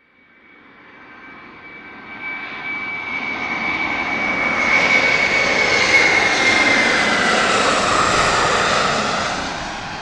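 Aircraft passing by: a rushing noise that builds from silence, is loudest about six seconds in and fades near the end, with a high whine that drops in pitch as it passes.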